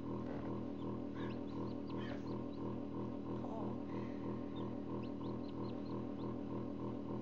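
Forced-air incubator fan humming loudly and steadily with a regular pulsing beat, while chicks give short high peeps in two bursts, about a second in and again around five seconds in.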